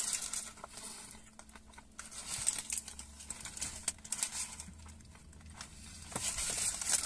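Food-wrap packaging crinkling in bursts as a snack wrap is handled and pulled out of it.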